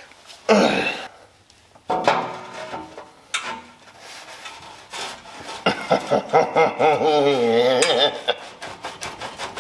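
A metal exhaust pipe scraping and squeaking as it is worked and twisted onto the header's slip joint. In the second half a wavering squeal comes in and holds for about two seconds among the scraping and clicks.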